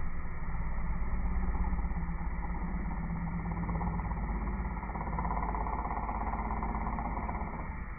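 Vertical machining centre (CNC mill) running: a steady mechanical rumble, with a higher, brighter noise coming in about five seconds in.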